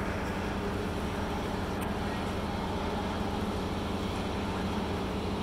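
A long escalator running, giving a steady low mechanical hum.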